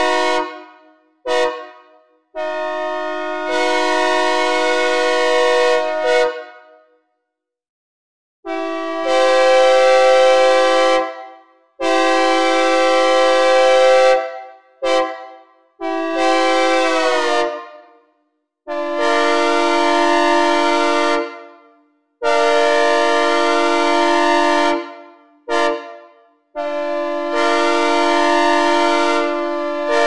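Synthesizer recreation of a Nathan K3LA three-chime locomotive air horn, sounding a chord in repeated blasts. After a short toot and a long blast, it twice plays the long-long-short-long grade-crossing pattern, and one blast's pitch sags as it cuts off.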